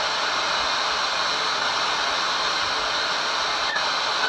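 FM static: a steady hiss from the speaker of a Paramount PMT-52 5-band portable radio as its tuning knob is turned between stations, with no station yet tuned in.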